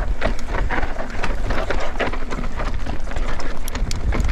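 Mountain bike descending a dry, rocky dirt trail at speed: the tyres crunch over loose stones and dust, with a dense, irregular clatter of small impacts and rattles from the bike. A steady low rumble of wind on the microphone runs underneath.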